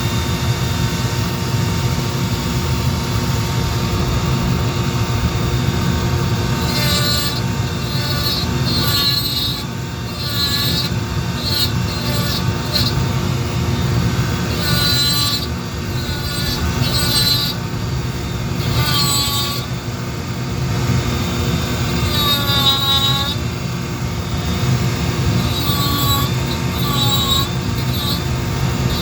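A small power carving tool runs steadily while working wood. Its whine rises and dips again and again under load.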